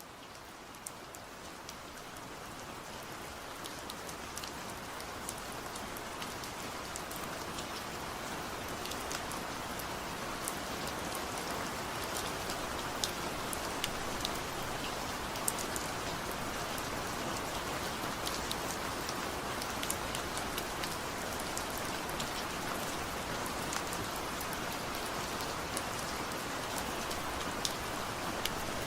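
Steady rain falling, with many separate drops ticking sharply over the hiss; it fades in over the first several seconds and then holds even.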